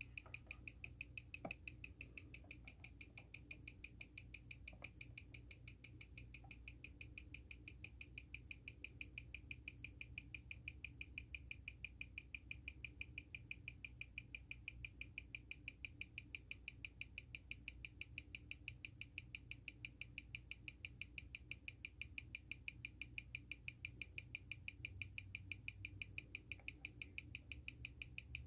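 Seiko SARB035 automatic watch ticking at 21,600 beats per hour, six even ticks a second, as it runs on a timegrapher. The machine reads it at about +8 to +9 seconds a day, with a 0.4 ms beat error.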